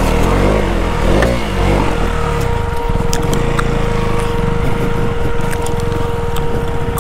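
Motorcycle engine running as it is ridden off-road. Its pitch rises and falls with the throttle in the first couple of seconds, then holds steadier, with a few sharp ticks over it.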